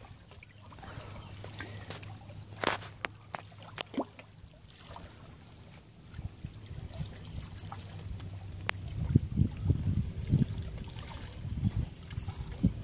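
Wind buffeting the microphone in irregular low gusts that grow stronger in the second half, with a few sharp clicks along the way.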